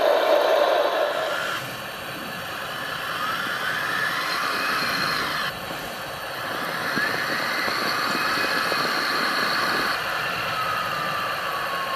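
Radio-controlled model construction machines working: small electric drive motors and hydraulic pumps whining, rising and falling in pitch, over a steady mechanical rattle. The sound changes abruptly a few times.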